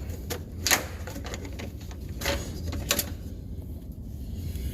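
Four sharp plastic clicks and knocks in the first three seconds as the washer-fluid reservoir cap is handled, over a steady low hum.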